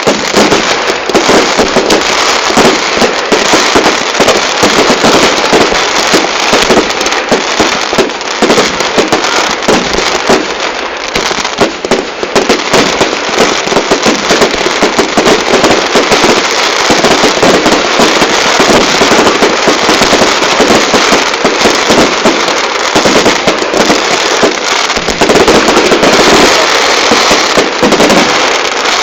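Fireworks going off in a loud, dense, rapid crackle of countless small bangs with no pause, which dies down near the end.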